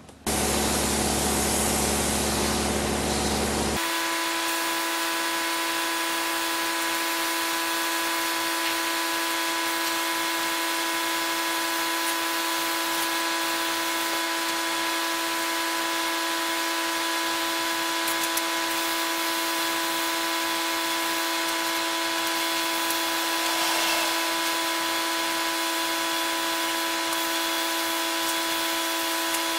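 Steady hiss of compressed air from a gravity-feed paint spray gun spraying paint, with a constant whine under it; about four seconds in the sound changes abruptly, a low hum dropping out and the whine becoming more prominent.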